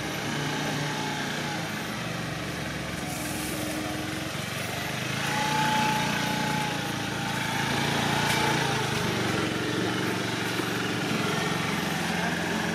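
Small Honda Today step-through scooter engine running at low speed with a steady drone. It swells slightly a few times as the throttle is opened.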